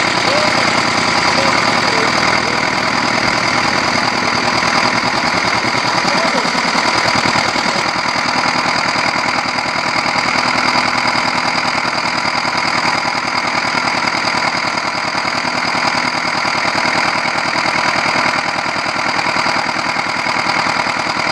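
Engine of a water pump running steadily, with a fast even firing beat.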